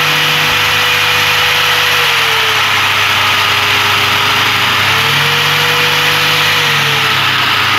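Electric angle grinder running with no load at full speed, about 9,000 rpm: a steady motor whine over a hum. Its pitch sags slightly about two and a half seconds in, rises back around five seconds, and sags again near the end.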